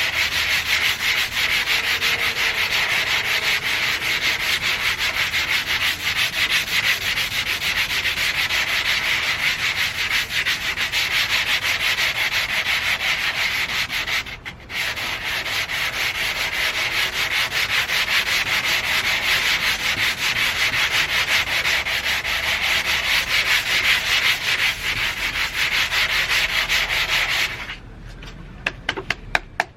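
80-grit 3M sandpaper rubbed by hand over the painted metal door of a 1991 Toyota MR2, in fast continuous scrubbing strokes, taking the paint down to bare metal before repaint. It pauses briefly about halfway and stops a couple of seconds before the end, leaving a few light clicks.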